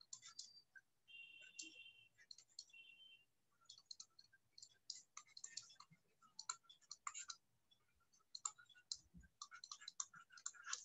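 Faint, irregular clicks and taps in near silence, with a brief faint high tone about a second in.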